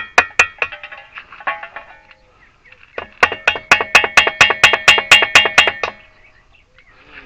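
Hammer tapping on metal, a few blows and then a quick run of about five ringing taps a second, driving a part home to seat it.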